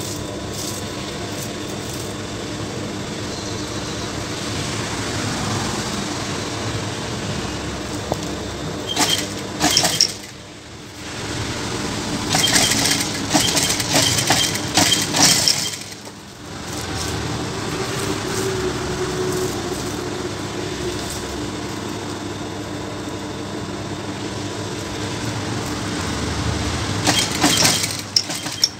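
JACK industrial single-needle sewing machine running steadily while stitching a seam, stopping briefly twice, about ten and sixteen seconds in. Bursts of crackling come around those stops and again near the end.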